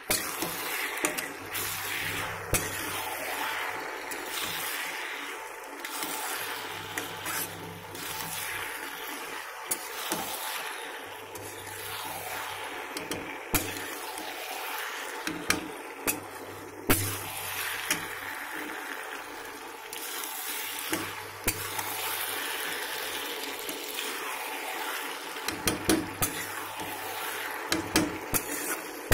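Macaroni frying in an iron kadhai with a steady sizzle, while a metal spatula scrapes and knocks irregularly against the pan as it is stirred. A steady low hum runs underneath.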